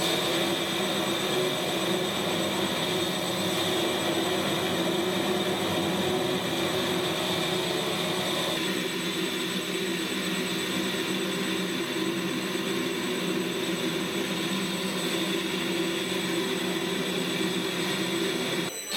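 Wabeco D6000 metal lathe running with a 250 mm faceplate spinning at 200 rpm: a steady mechanical hum with a high whine over it, and no cutting. The tone shifts slightly about nine seconds in.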